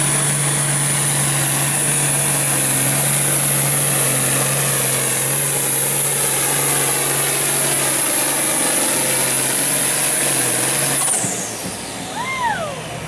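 International Harvester farm stock tractor's diesel engine running hard under full load while pulling the weight-transfer sled: a steady loud drone with a high whine over it. About eleven seconds in, the whine falls away sharply and the engine drops back quieter as the pull ends.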